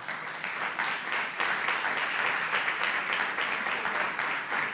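Audience applauding: many people clapping at once in a dense, even patter of claps.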